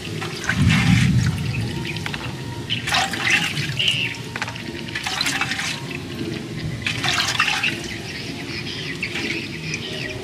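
Fresh chili peppers tipped and handled on a woven bamboo tray: a soft thump about half a second in, then three short dry rattling rustles a couple of seconds apart.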